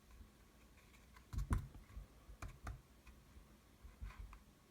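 Light clicks and taps from handling a thick, heavy trading card, with a louder knock about a second and a half in and scattered small ticks after it.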